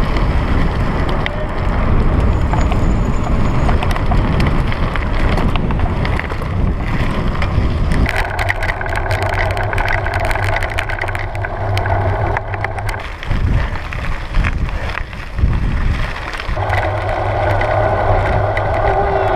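Wind buffeting a bike-mounted camera's microphone as a drop-bar bicycle rolls along a gravel road, with tyres crunching over loose stones and the bike rattling.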